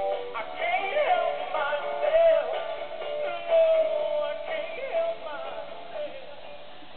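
Animated plush Valentine's Day dog toy singing a recorded song with music backing; the song stops near the end.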